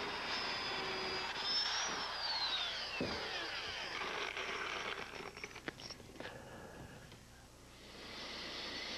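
Power drill boring into wood. The motor's high whine holds steady, then falls away as the drill winds down about two to three seconds in. A few light knocks follow.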